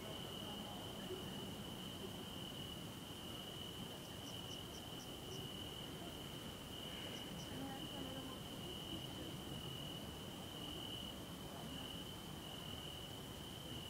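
Crickets chirping in a steady, high, nearly unbroken trill, with a quick run of faint higher pips about four seconds in and two more about seven seconds in.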